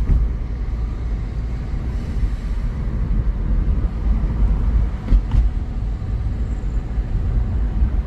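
A car driving, heard from inside the cabin: a steady low rumble of engine and tyres, with a couple of short knocks about five seconds in.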